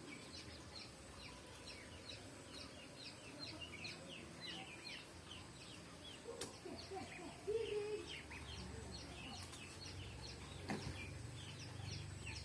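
A crowd of chicks peeping: many short, high, falling cheeps overlapping without a break. A few lower clucking calls come in from about six seconds in, and a low rumble builds toward the end.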